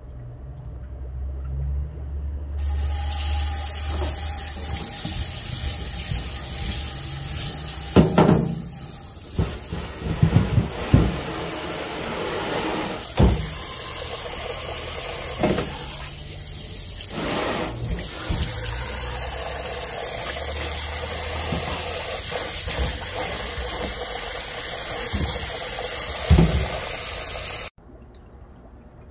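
Water running steadily in a loud, even rush, with a few knocks and bumps over it; it cuts off suddenly near the end.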